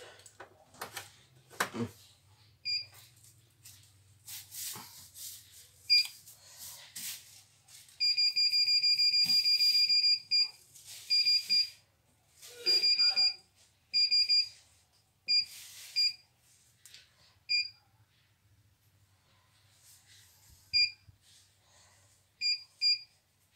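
CNY E900 embroidery machine's control panel beeping as its buttons are pressed while scrolling through the embroidery file list. There are single short beeps, a fast run of beeps lasting about two seconds, then more scattered beeps.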